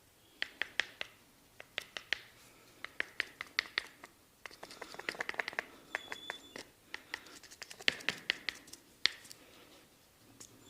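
Barber's hands working a head and neck massage: quick clusters of sharp snapping clicks, with a stretch of rubbing over skin and hair near the middle.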